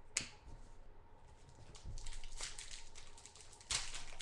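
Football trading cards and their packaging being handled by hand: a sharp click just after the start, then rustling and crinkling from about two seconds in, loudest near the end.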